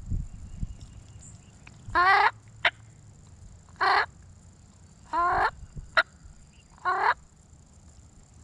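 Wild turkey gobbling, four rattling gobbles about a second and a half apart, with two short sharp clicks in between.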